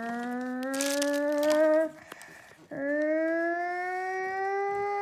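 A dog howling: two long howls, each rising slowly in pitch. The first breaks off about two seconds in, and the second starts shortly after.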